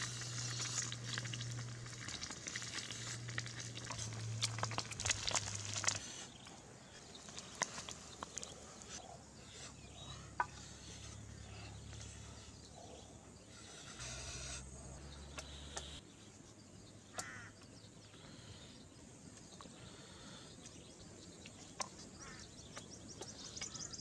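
Egg frying in a pan, sizzling and crackling as it is stirred with a bamboo stick, for about the first six seconds. After that it goes quieter, with scattered light clicks and rustles over a steady low hum.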